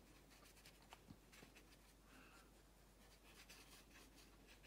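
Faint, soft strokes of a round watercolour brush working paint across watercolour paper, with a couple of light ticks about a second in.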